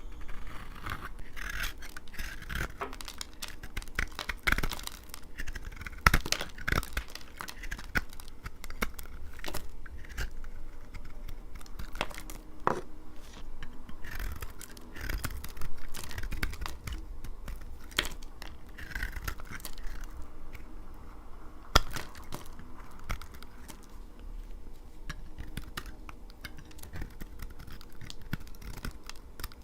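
A knife cutting through dry laundry soap: a run of crisp crunches, scrapes and cracks at uneven intervals, with two sharp cracks louder than the rest, about six seconds in and about twenty-two seconds in.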